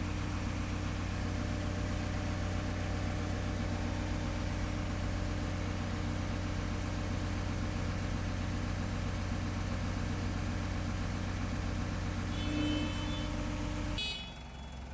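Heavy machine's engine running steadily while lowering the plant's concrete mixer. High beeping starts near the end, and the engine sound drops away abruptly just before the end.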